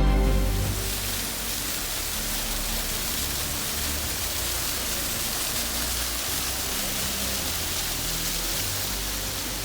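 Small mountain waterfall rushing close by, a steady hiss of falling water.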